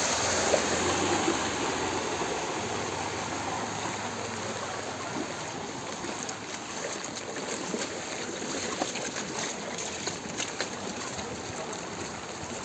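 Floodwater rushing in a steady stream, with a few faint clicks in the second half.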